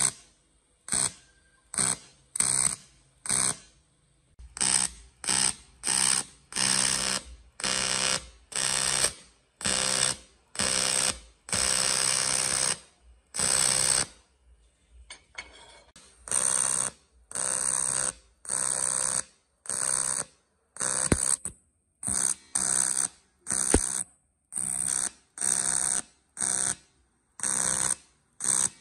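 TIG welding arc on a cracked cast aluminum gearbox housing, buzzing in a long run of short bursts, each under a second to about a second and a half long, with brief gaps as the arc is struck and stopped along the crack with filler rod. The pause is longer about halfway through.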